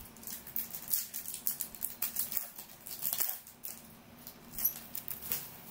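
Foil wrapper of a trading-card pack crinkling and crackling as it is handled and opened by hand, in a run of quick irregular rustles.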